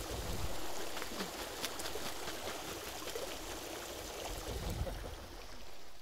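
A seabird bathing in a shallow pool, beating its wings in the water: continuous splashing, with scattered sharper splashes and drips.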